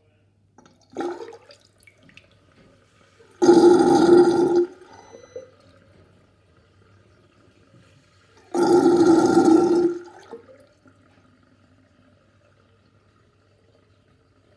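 Sink drain gurgling: two loud gulping bursts, each about a second long and about five seconds apart, with a smaller gurgle about a second in.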